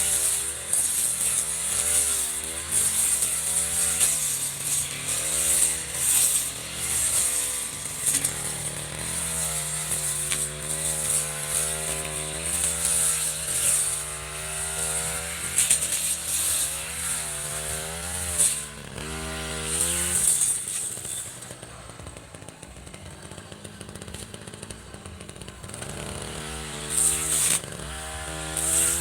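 Echo RM435 brush cutter's two-stroke engine running and revving up and down repeatedly. About two-thirds of the way in it drops back to a quieter idle for about five seconds, then revs up again near the end.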